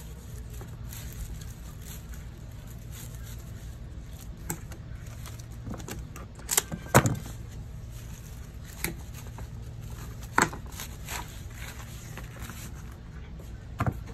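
Leatherleaf fern stems being pushed into a glass vase: rustling fronds with a handful of short, sharp clicks and knocks, the loudest about seven seconds in, over a steady low hum.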